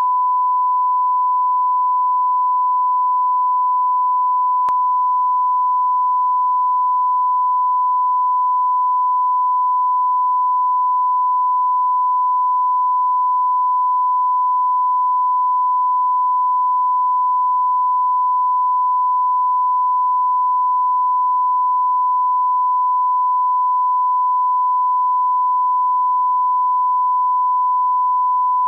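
Steady 1 kHz sine test tone, the line-up reference tone that plays with colour bars at the head of a broadcast tape. One faint tick sounds about five seconds in.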